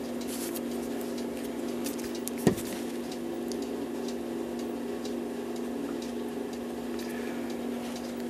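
Small scattered clicks of pliers working worn steel pins out of a brass clock wheel, with one sharp knock about two and a half seconds in, over a steady hum.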